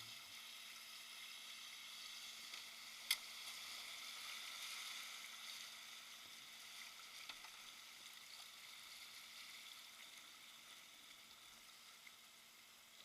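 River water rushing over rapids, a faint steady hiss, with one sharp click about three seconds in.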